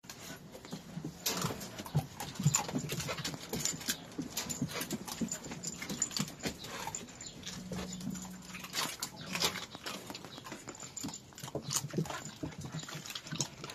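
Puppies playing together, with scuffling and rustling on a blanket mixed with short dog sounds.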